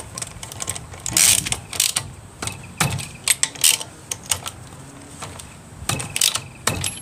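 Hand ratchet with socket and extension clicking in short, irregular runs as wheel nuts are run down on a refitted wheel.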